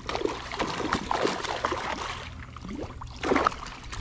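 Water splashing in irregular bursts as a hooked snook thrashes at the surface beside a small canoe, with the loudest splashes near the end.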